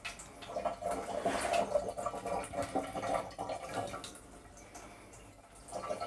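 Kitchen tap running, a steady splash of water that weakens for a couple of seconds near the end.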